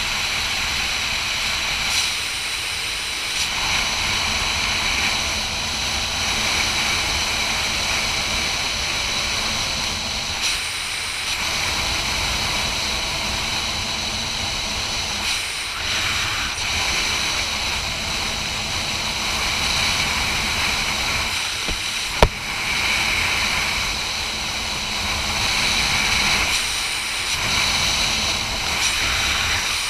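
Wind rushing over a helmet-mounted camera's microphone during flight under an open parachute canopy, a steady hiss and rumble with faint whistling. A single sharp click sounds about two-thirds of the way through.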